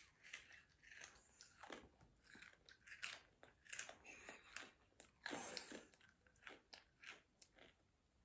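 A child chewing a mouthful of three red Takis rolled tortilla chips at once: a faint, irregular run of crunches.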